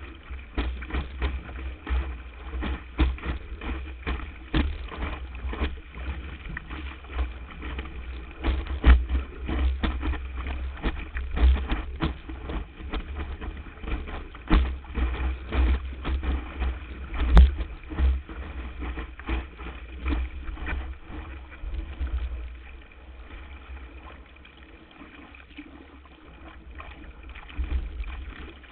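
Windsurf board planing across light chop, heard from a camera mounted on the board's nose: a steady rumble of wind on the microphone and rushing water, with frequent sharp slaps as the hull hits the chop. It eases to a quieter rush for a few seconds about three-quarters through.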